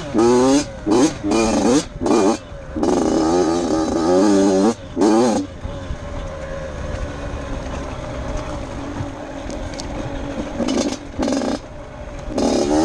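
Off-road dirt bike engine revving hard in short bursts, the throttle chopped between them as the rider works along a rocky trail. About halfway through it settles into several seconds of lower, steadier running, then revs up in bursts again near the end.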